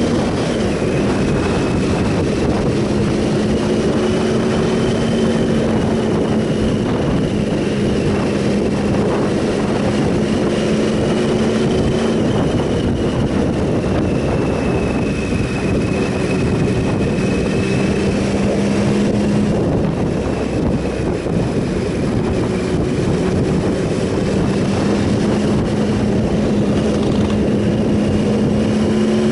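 Triumph Sprint ST 1050's three-cylinder engine running at a steady cruise, its note holding nearly level with small rises and falls in pitch, under a steady rush of wind noise.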